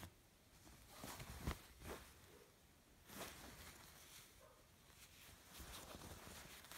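Faint rustling of a grey denim GUESS shirt as a hand handles the fabric, with a few soft knocks and brushes about a second in and again around three seconds.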